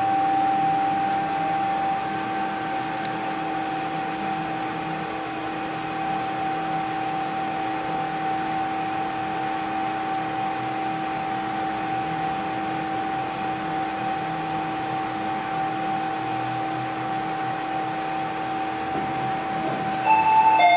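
Steady hum of an elevator car, a fan-like hiss with two constant held tones, one lower and one higher. Just before the end a louder warbling two-note tone starts.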